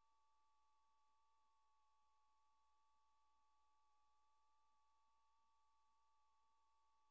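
Near silence: only a faint, steady, two-note electronic whine over light hiss, with no sound from the game itself.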